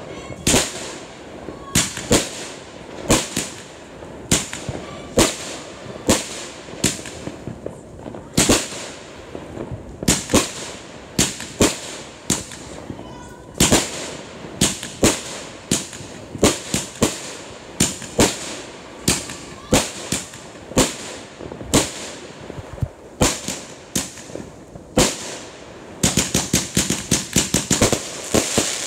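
Aerial consumer fireworks going off: a steady run of sharp bangs, about one or two a second, as shells burst overhead. About 26 seconds in they give way to a dense, rapid crackling.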